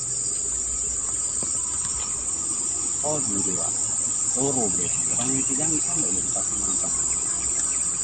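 Insects shrilling in one continuous, high-pitched drone that holds steady throughout.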